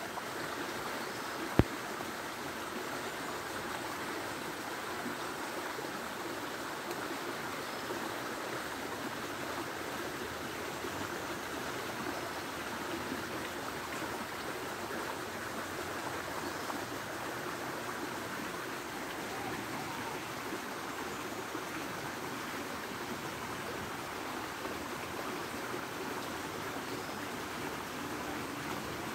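Steady rushing noise, like running water, with one sharp click about a second and a half in.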